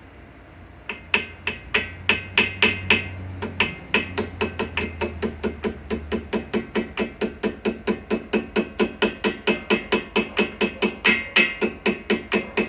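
Rapid light hammer taps on a steel brake pad retaining pin, driving it through the spring clip into a four-piston front brake caliper. About four taps a second, each with a short metallic ring, starting about a second in and keeping a steady rhythm.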